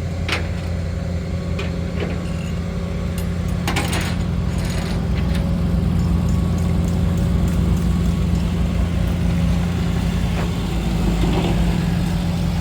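Rat rod's engine idling with a steady low drone, with a few light clicks about four seconds in.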